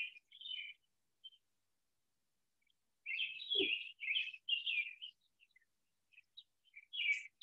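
Songbird singing outdoors: short chirping, warbling phrases, a few near the start, then a run of repeated phrases from about three seconds in, thinning to scattered single chirps.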